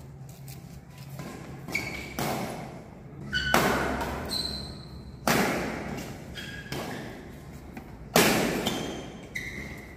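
Badminton rackets striking shuttlecocks in a drill: five sharp hits, three of them loud, spaced one to three seconds apart, each ringing on in a large hall.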